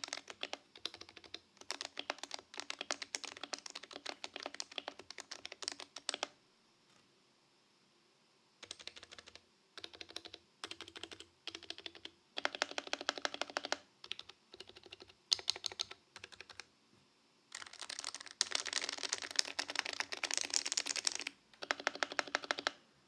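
Typing on a custom Topre keyboard with BKE Light domes, silencing rings, HHKB keycaps and a stainless steel plate in a brass-bottomed case: quick runs of soft keystrokes in bursts, broken by short pauses, with a longer pause after about six seconds.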